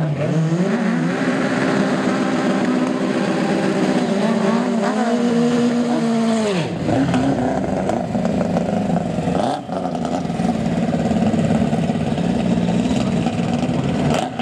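Two drag-racing VW Beetles' air-cooled engines revved on the start line and held at a steady high pitch, stepping up about five seconds in and dropping away near seven seconds, followed by loud rough engine noise as the cars run.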